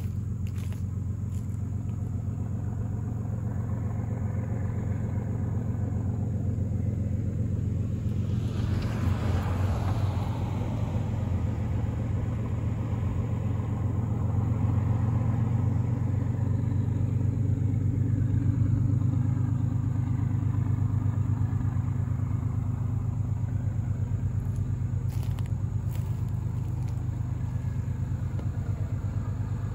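GE diesel locomotives (an ES44DC and a D9-44CW) of an approaching freight train rumbling low and steady, throttled back to idle as the train slows. A brief swell of rushing noise about nine seconds in.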